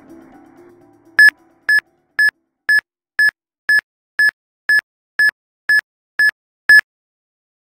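Background music fades out, then twelve short, evenly spaced electronic beeps of one high pitch, about two a second, stopping abruptly.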